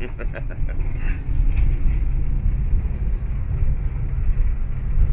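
Motorhome driving along the road, heard from inside the cab: a steady low rumble from the engine and tyres.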